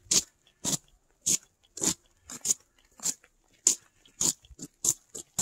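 Footsteps crunching in snow at a steady walking pace, a sharp crunch about every 0.6 s, with fainter crunches in between.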